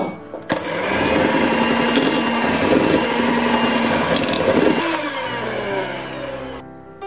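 Electric hand mixer running, its wire beaters churning cold butter cubes into thick pastry cream in a glass bowl. It starts about half a second in, runs steadily, then falls in pitch and stops near the end.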